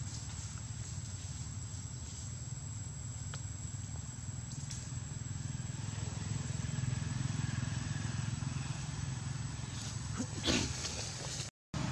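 Steady low outdoor rumble with a faint, thin, high steady whine above it. About ten and a half seconds in there is a brief louder rustle, and the sound cuts out for a moment just before the end.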